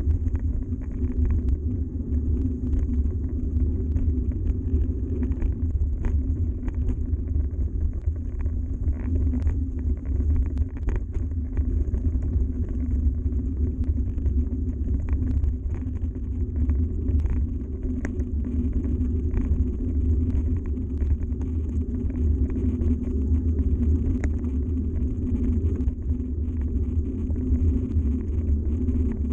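Yeti SB130 mountain bike rolling steadily over a gravel track: a constant low rumble from the tyres and frame, with many small scattered clicks and rattles of gravel and bike parts.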